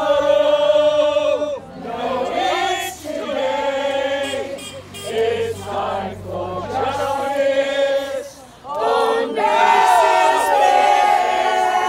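A small group of voices singing a song together in long held phrases with short breaks between them. The last phrase, about three-quarters of the way through, is the loudest and is held long.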